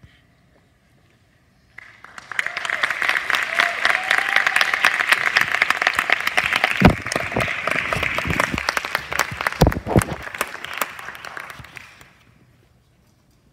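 Theatre audience applauding the end of a song: applause breaks out about two seconds in, swells, and dies away near the end, with a few loud claps close by.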